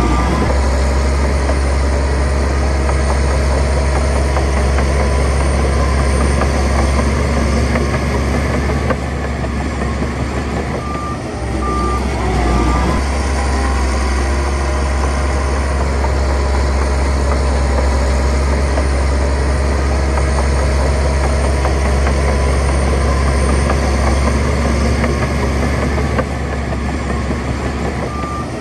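Heavy diesel earthmoving machinery running steadily under load with a deep engine hum, and a reversing alarm sounding three short beeps about eleven seconds in.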